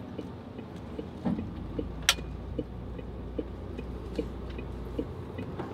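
Turn-signal indicator ticking steadily in a Mercedes-Benz Actros truck cab, an alternating tick-tock about every 0.4 s, over the low drone of the running truck. A single sharp click comes about two seconds in.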